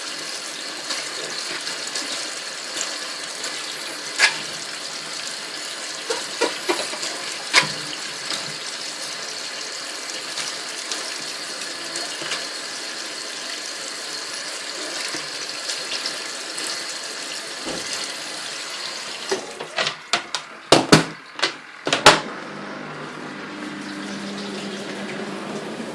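Water running steadily in a Superbrite twin tub washing machine during rinsing, with a few sharp clicks. Near the end comes a quick series of loud knocks, then the water sound stops and a low steady hum is left.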